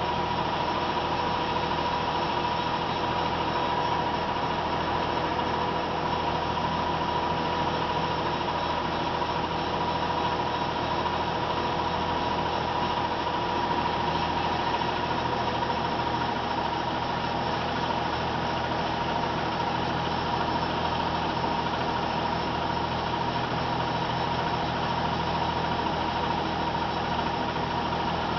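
Converted Molins Mk8 cigarette-making machine running steadily as it cuts off rods and throws them into a tray: an even mechanical clatter with a steady high whine over it.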